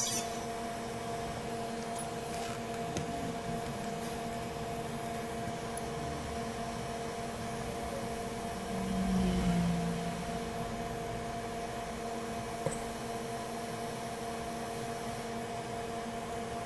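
Steady hum of electrical microsoldering bench equipment, holding a few fixed tones, with a short louder low hum about nine seconds in.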